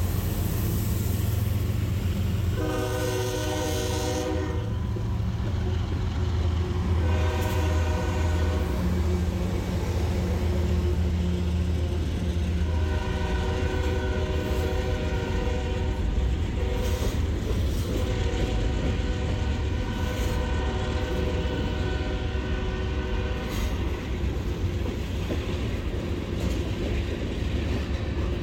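CSX freight train passing close by: the diesel locomotives' engines drone for the first dozen seconds, then the hopper and tank cars roll and rattle on the rails. Over this the locomotive horn sounds four times: two blasts of about two seconds, a slightly longer one, then a long one of about five seconds.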